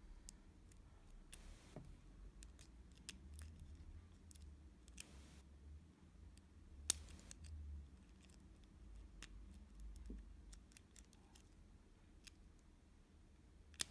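Faint, irregular clicks of a Sparrows lock pick working the pins of a Zone 40mm stainless steel padlock under tension, with one sharper click about seven seconds in.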